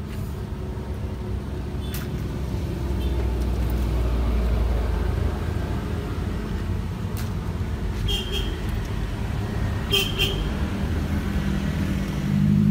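Road traffic passing close by, a vehicle's engine rumble swelling about three to five seconds in. A few sharp clicks sound over it, two of them near the end with a brief high ring.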